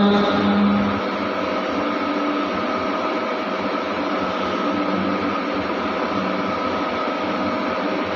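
Mantra chanting breaks off about a second in, leaving a steady, even hiss with faint tones in it.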